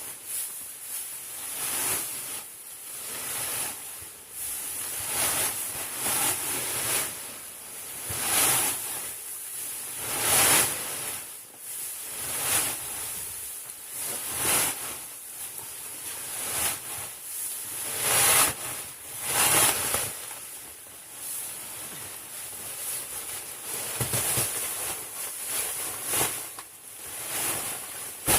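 Repeated rustling and scraping noises, one every second or two, over a steady high hiss.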